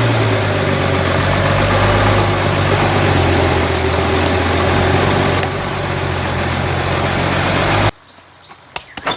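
Heavy truck engine running steadily, cutting off abruptly near the end.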